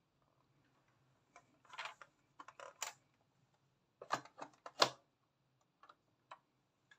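Hard plastic toy buses being handled and set down: a scatter of short clicks and knocks in two clusters, the loudest knock about five seconds in, over a faint low hum.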